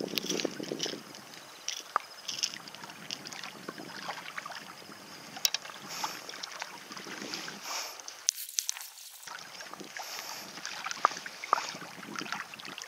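Close handling noise from an angler working a fishing rod and a landed bass on a rocky bank: scattered clicks, knocks and rustling over a steady hiss.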